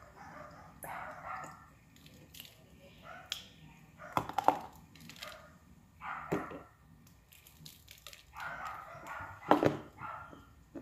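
Dry brown clay cracking and crunching as pieces are bitten off and chewed. There are several sharp cracks, the loudest about four seconds in and again near the end, with softer crunching in between.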